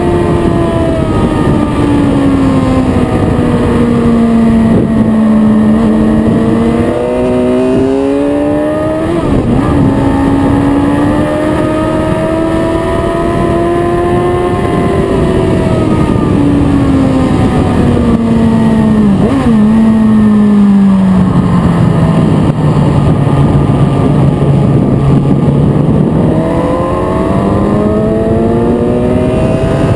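Sport motorcycle engine heard from onboard at track speed, its pitch rising and falling as the bike accelerates and slows, with a long low stretch late on before it climbs again near the end, over steady wind rush.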